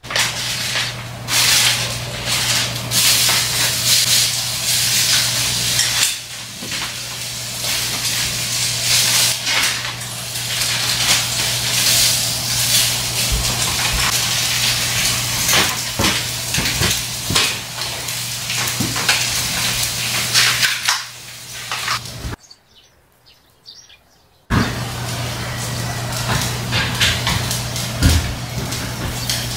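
Beef, sausages and fish-cake skewers sizzling on a foil-lined grill plate, with a steady low hum and occasional clicks of metal tongs. The sound drops out for about two seconds near the end, then the sizzling resumes.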